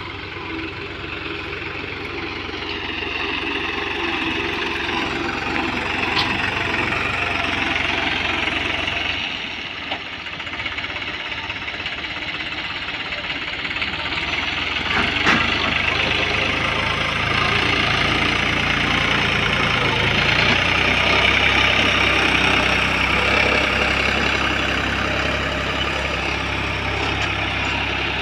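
Diesel tractor engine running steadily, with a single sharp knock about fifteen seconds in.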